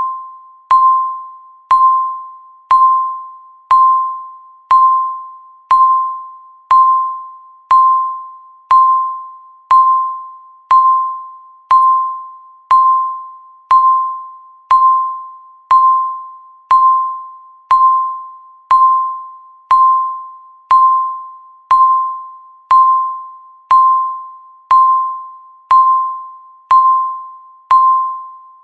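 Countdown timer beeping once a second, one per second counted down: a single electronic tone that strikes sharply and fades away before the next.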